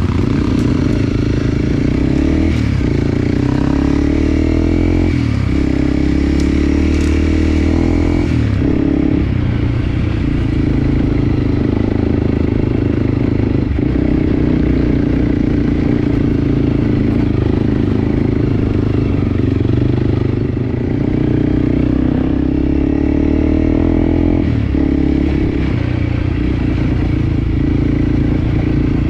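Enduro dirt bike engine running steadily while being ridden, its note dipping briefly several times.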